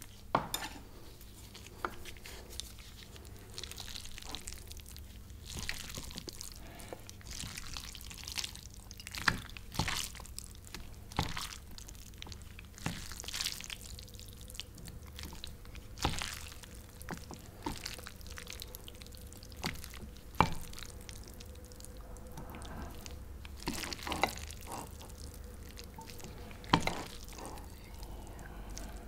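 Chopsticks lifting and stirring sauce-coated Korean spicy mixed noodles on a ceramic plate, close-miked: wet squishing and dripping sounds, with a dozen or so sharp, irregular clicks.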